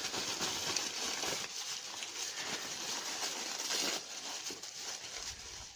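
Soft, continuous rustling and crinkling of package wrapping being handled.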